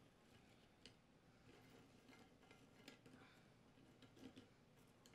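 Near silence, with a few faint, light clicks and taps of crackers being set down on a glazed ceramic plate.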